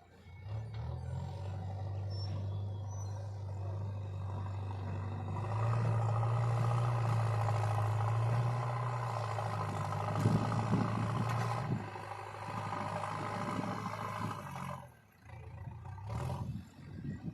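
Diesel engine of heavy farm or earthmoving machinery running, revving up about five seconds in and dropping back to a lower note before fading near the end.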